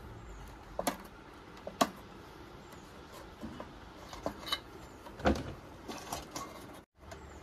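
Scattered small clicks and scrapes of a flat metal blade cutting the thread that ties the wires inside a rice cooker's base, two of them sharper, about two and five seconds in.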